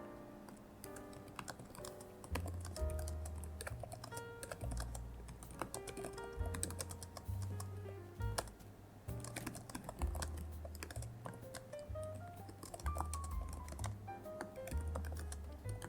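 Typing on a computer keyboard: quick, irregular keystrokes with short pauses, over soft background music with a low bass line.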